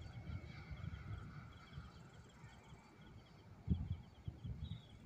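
Faint insects chirping in quick rhythmic groups, with low wind buffeting on the microphone and a single low thump about three and a half seconds in.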